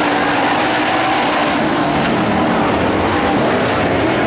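A pack of IMCA modified dirt-track race cars with V8 engines running together at racing speed. Their exhaust notes blend into one loud, steady drone whose pitch wavers as the cars go around.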